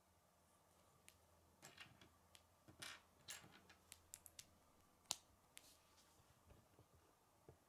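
Faint clicks and light rattling of plastic K'nex pieces being handled and fitted together, with one sharper snap about five seconds in as a white rod is pushed into a grey connector.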